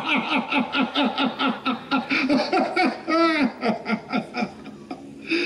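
A man's loud, theatrical mocking laugh: a fast, even run of 'ha-ha' pulses, about five a second, with a drawn-out wavering note a little after three seconds in before it dies down.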